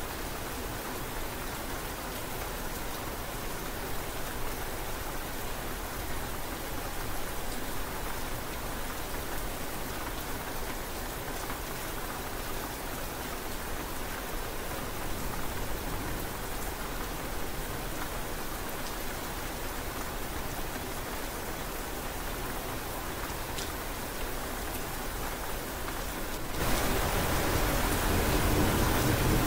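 Steady rain falling. Near the end it suddenly grows louder and deeper as a rumble of thunder sets in.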